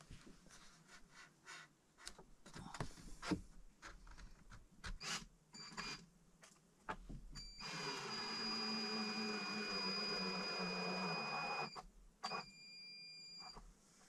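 Knocks and clatter of lumber being handled, then a cordless drill runs steadily for about four seconds and runs again briefly a moment later.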